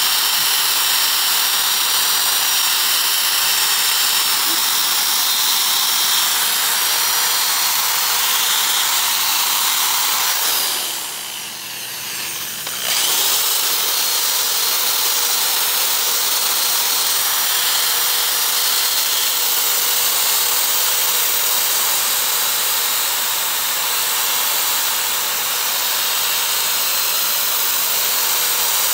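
Electric drill spinning a sanding disc against the rusty steel of an axe head: a steady motor whine under the rasp of abrasive on metal. The drill winds down about eleven seconds in and spins back up about two seconds later.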